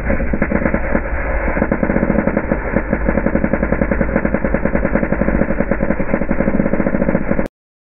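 Welding arc on steel frame parts, a steady fast crackling that cuts off suddenly near the end.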